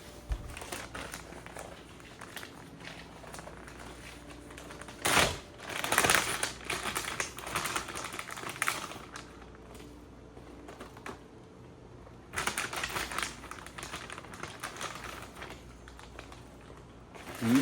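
Rapid, irregular light clicking and tapping with rustling, in two louder bursts, one about five seconds in and one about twelve seconds in.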